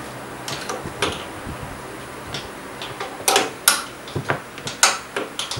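A steel wrench clinking on the rusted upper shock-mount nut: a string of irregular sharp metal clicks, sparse at first and busier in the second half.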